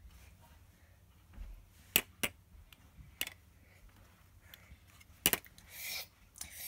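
Several sharp plastic clacks as toy kitchen pieces (pot, pan lid, play food) are handled and knocked together, the loudest about two seconds in and again about five seconds in, with a brief hiss just after the last one.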